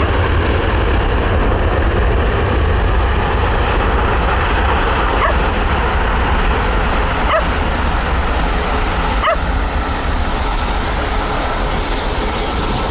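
Airliner engines running loud and steady close by. Three short high calls cut through about two seconds apart, partway through.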